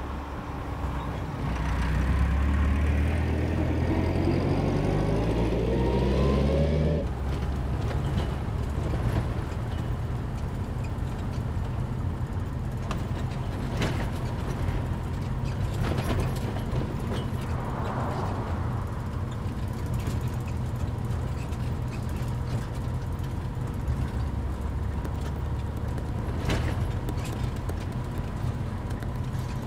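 UAZ-452 van's engine revving up as it pulls away, its pitch rising for about seven seconds. It then cuts to the steady low drone of the engine heard inside the cabin, with a few short knocks and rattles.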